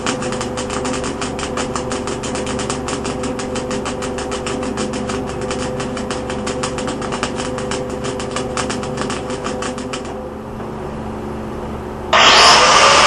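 MIG welder laying a bead with its wire speed turned up: a fast, even crackling sputter over the welder's steady hum, which stops about ten seconds in. The welder is pulsing, which the welder blames for the rough bead. About a second before the end, a much louder harsh rushing noise starts.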